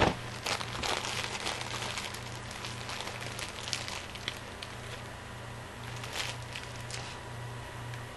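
Plastic wrapper of a Zebra Cakes snack cake crinkling and crackling as it is handled and opened: a sharp snap at the start, a dense run of crackles over the first few seconds and a few more a little later, over a steady low hum.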